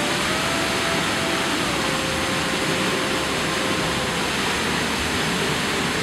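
Steady rush of a waterfall plunging into a rock pool, with faint held notes of background music underneath.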